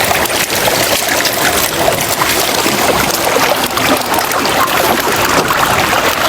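Water trickling and splashing: a steady rushing noise dotted with many small splashes and clicks.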